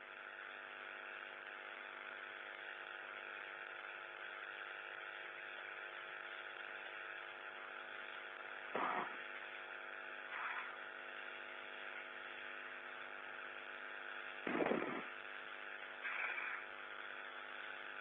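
Steady hiss and hum of an open space-to-ground radio audio loop during a spacewalk, cut off sharply above the radio channel's band, with four short blips in the second half.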